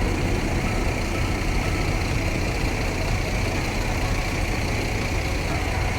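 Steady rumble of jet aircraft engines from a five-plane aerobatic formation in flight.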